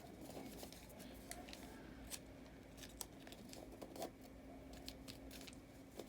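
A sheet of paper being folded and creased by hand: faint scattered rustles and light ticks, over a faint steady low hum.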